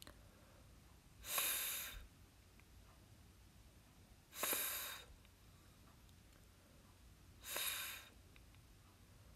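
A voice sounding out the phonics sound /f/ as a breathy 'fff' hiss, three times about three seconds apart, each lasting under a second.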